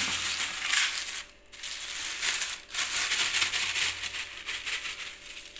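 Thin black plastic carry bag rustling and crinkling as raw fish is shaken out of it onto a plastic plate. The rustle comes in stretches, with two brief pauses.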